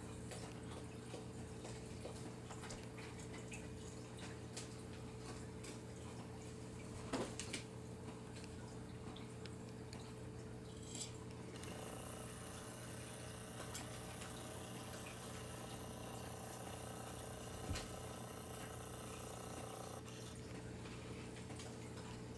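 Raccoon eating dry cat food from a bowl: faint crunching and small clicks of kibble and bowl, with two sharper knocks against the bowl, about a third of the way in and again near the three-quarter mark. Underneath runs a steady low hum, and a hiss joins in for several seconds past the middle.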